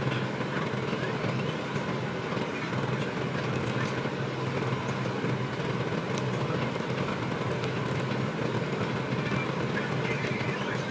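Steady low hum with an even hiss of room noise, with a few faint soft ticks now and then.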